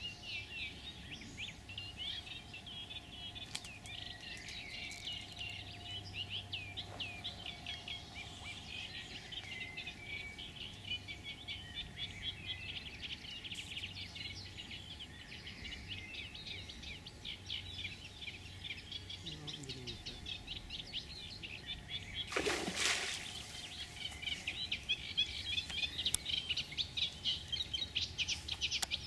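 Small birds singing a fast, continuous chattering song. About three-quarters of the way through comes one short splash in the water.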